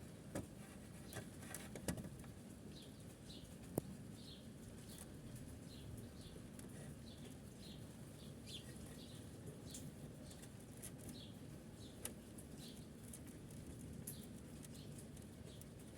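Faint, short, high chirps repeating irregularly, about one or two a second, typical of a small bird calling in the background. They sit over a low steady background hum, with a few light clicks.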